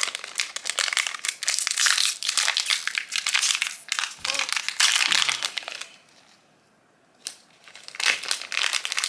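Crinkly packaging of a mystery pin pack being handled and opened by hand. It crinkles for about six seconds, goes quiet briefly, then crinkles again near the end.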